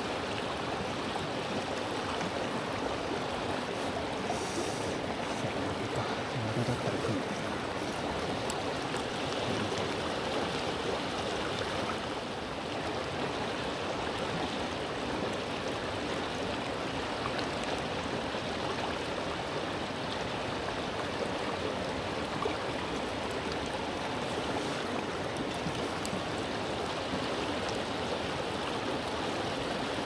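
Mountain stream flowing: a steady, unbroken rush of water.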